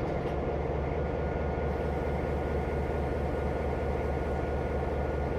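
NOHAB M61 diesel locomotive's EMD 567 two-stroke diesel engine running at a steady idle: an even, low rumble with a faint steady whine above it.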